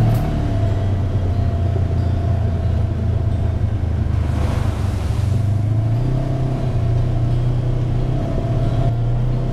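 Side-by-side UTV engine running steadily while driving a wet dirt trail, its note stepping up in pitch about six seconds in as it picks up speed. A brief hiss rises and fades about four seconds in as the tyres run through wet mud.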